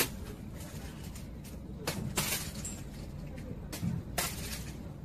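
A handful of short, sharp knocks or clatters over a steady background hiss.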